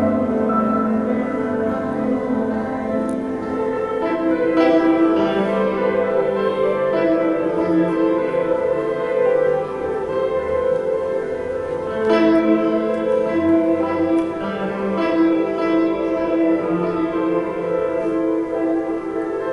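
Solo grand piano playing a slow piece: sustained chords that ring on, with new chords struck about four seconds in and again about twelve seconds in.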